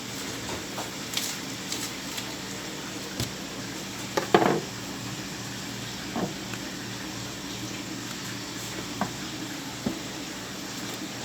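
Scattered taps and knocks from hand-butchering beef chuck-eye with a knife, with a brief louder scrape about four seconds in, over a steady low hum.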